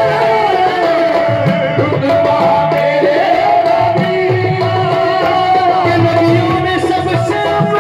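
Live qawwali: a male lead voice sings over a harmonium holding steady notes, with dholak drumming and hand clapping keeping the beat.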